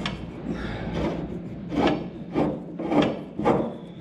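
Threaded steel shutter-control rod on a John Deere Model B being turned out of its fitting by hand. Its threads and shaft give short rasping, rubbing strokes, about two a second, through the second half.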